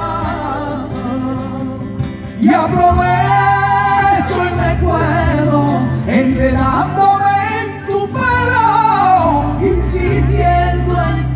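Live concert music: a band accompaniment with sung vocals over it.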